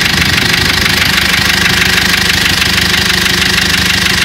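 GAZelle's Cummins four-cylinder diesel engine running with a steady, rhythmic knock. The knock goes away when the third injector is switched off, which places it in the third cylinder; it began after the injectors were over-fuelling.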